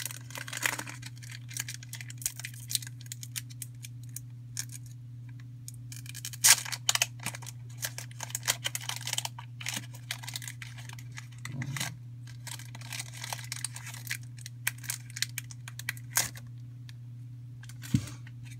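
Foil Pokémon booster pack being torn open and crinkled, in scattered bursts of rustling and tearing, the sharpest crackle about six and a half seconds in, over a steady low hum.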